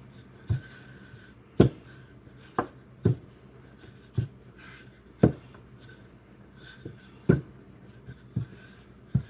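Wooden rolling pin rolling out pie dough on a floured countertop, with a sharp knock about every second at uneven intervals, roughly ten in all.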